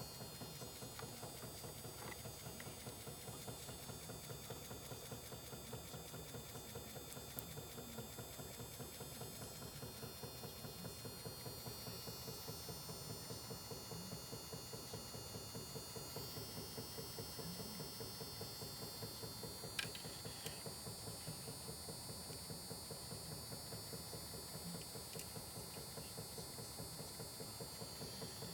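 Small homemade battery-charging machine running steadily with a rapid, even ticking, and one sharper click about two-thirds of the way in.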